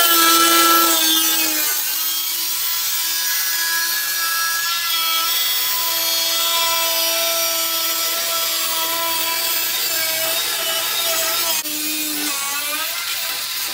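Angle grinder with a cut-off disc cutting through the sheet steel of a BMW E36's rear inner wheel arch: a steady high whine over a loud grinding hiss. Near the end the whine sags and wavers in pitch.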